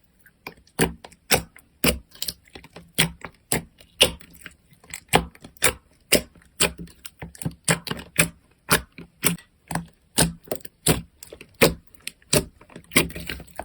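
Slime being pressed and worked by hand, making a quick, irregular run of sharp pops and clicks, several a second.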